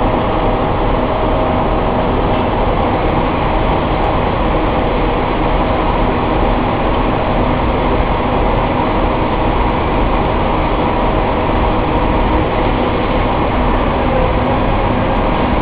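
Snack-food production line machinery running steadily: motors and conveyors making a loud, even mechanical noise with a constant hum.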